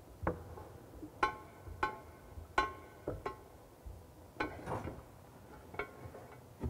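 About ten irregular clinks and knocks from plumbing fittings being handled against a ceramic pedestal basin. Each clink rings briefly at the same pitch, with a short scrape in the middle.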